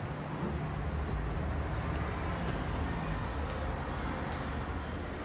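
Steady low background hum with faint high chirps over it.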